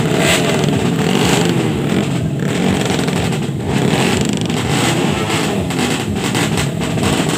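A drag-racing motorcycle's engine running and being revved, its pitch rising and falling again and again.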